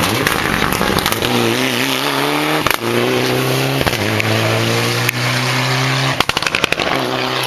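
Rally car engine accelerating hard away at full throttle, its pitch climbing and dropping back at each of several quick gear changes. A rapid burst of sharp cracks comes a little after six seconds in.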